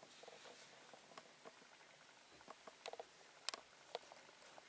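Faint, scattered clicks and taps of a cat's claws and paws on the top of a cupboard, with a little cluster of three near three seconds in and the loudest click about half a second later; otherwise near silence.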